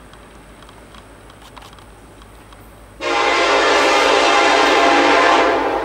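Approaching freight train's diesel locomotive sounding its air horn: one long, loud chorded blast that starts suddenly about three seconds in and begins to fade near the end. Before it, only a faint low rumble of the train still in the distance.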